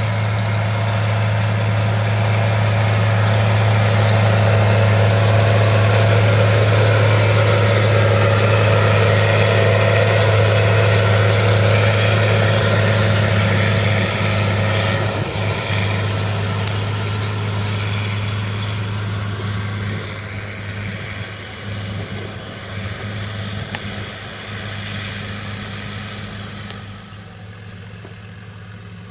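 New Holland T8020 tractor running steadily under load while pulling a Schuitemaker Rapide 145 loader wagon that picks up grass windrows, the engine hum mixed with the clatter of the wagon's pickup. Loudest in the first half, then growing quieter as the rig moves farther off.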